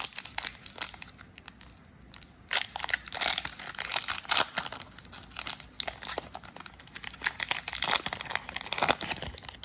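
Wrapper of a trading card pack crinkling and tearing as it is opened by hand, in irregular crackles that are loudest about three to four seconds in.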